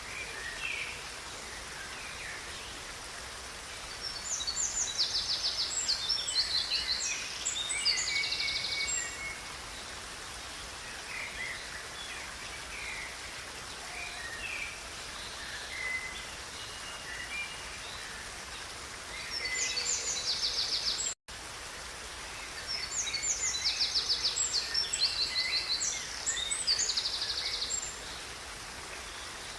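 Songbirds singing in phrases of rapid high trills and chirps over the steady rush of a river. The singing comes in two long bouts, and the sound cuts out for an instant about two-thirds of the way through.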